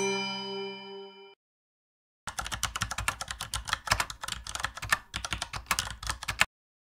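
Rapid keyboard typing, a quick irregular run of keystrokes lasting about four seconds that stops abruptly. Before it, the last chiming notes of an intro jingle fade out.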